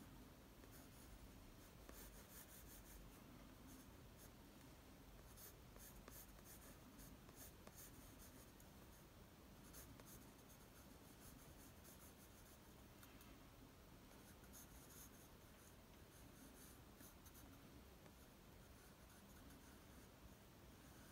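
Pencil scratching faintly on drawing paper in runs of quick, short sketching strokes, with brief pauses between runs.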